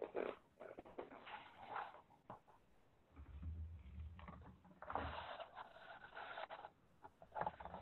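Faint rustling and scraping noises with scattered light taps, in two longer stretches: one near the start and one a little past the middle.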